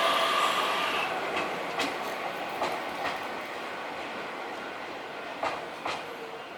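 Keio Inokashira Line electric train running past and moving away, its wheels clacking over the rail joints in pairs of sharp clicks while the running noise fades.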